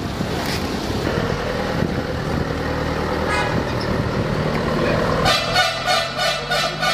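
Street traffic: a vehicle engine running steadily, and from about five seconds in a horn sounding in a quick run of short toots.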